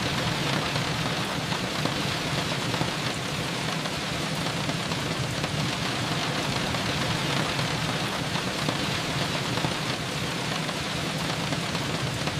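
Steady rain falling and pattering on surfaces, heard as a constant even hiss with no pauses or changes.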